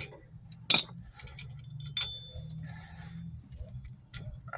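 Small metal drum-brake hardware being worked by hand: a sharp click, then a short ringing metallic clink, among scattered faint clicks and taps.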